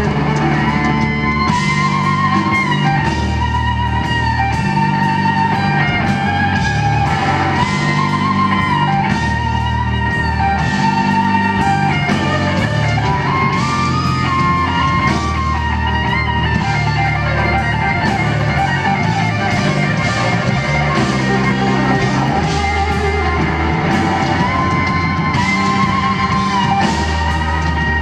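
Live blues-rock instrumental: a Les Paul-style electric guitar plays a sustained lead solo with bent, wavering notes over a band with long held bass notes underneath.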